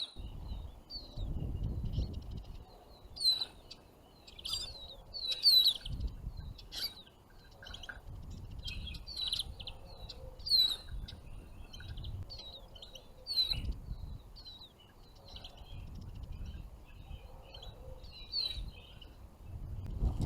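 Small finches chirping and calling repeatedly in short, sharp, downslurred notes, with gusts of wind rumbling on the microphone now and then.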